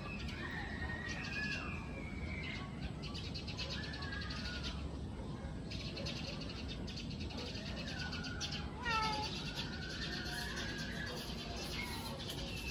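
A cat meowing several times, the loudest a short falling call about nine seconds in, over a steady low hum, with stretches of fast high-pitched pulsing.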